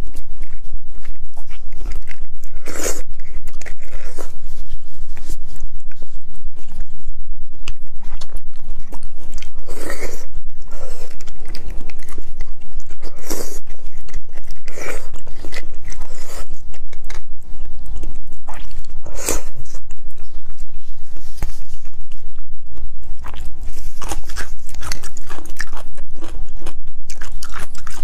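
Close-miked eating of spicy braised beef bone marrow: chewing and wet mouth sounds, with a metal spoon scraping marrow out of the bone. A few louder sharp bursts are scattered through, over a steady low hum.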